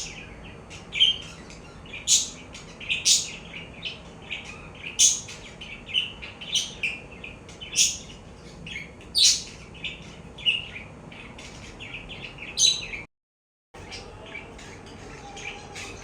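Budgerigar chirping in short, sharp calls about once a second, over faint chatter. The sound cuts out completely for about half a second near the end, and afterwards only the faint chatter is left.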